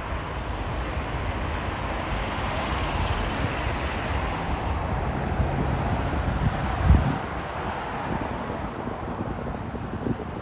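Road traffic passing, one vehicle swelling up and fading away, with wind rumbling on the microphone. A short low thump about seven seconds in is the loudest moment.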